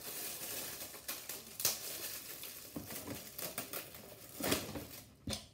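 Plastic crinkling and clicking as a Beyblade launcher and its packaging are handled, with several sharp clicks, the loudest about four and a half seconds in.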